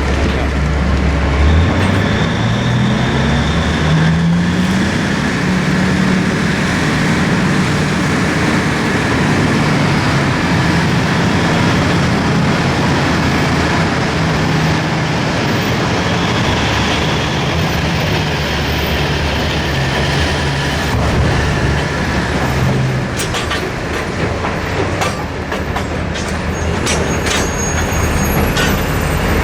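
Large diesel engine of a Liebherr R9350 mining excavator working under load, its pitch rising about a second in and then running steadily. A scatter of knocks and clatter comes near the end.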